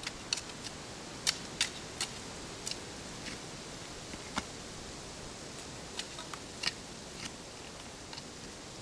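Long-handled shovel digging into damp clay soil, loosening the bottom of a planting hole: irregular short, sharp scrapes and chops as the blade cuts the earth, over a faint steady hiss.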